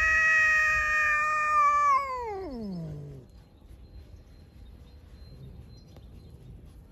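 Grey-and-white cat yowling at another cat: one long aggressive yowl held at a steady pitch, which slides down and dies away about three seconds in.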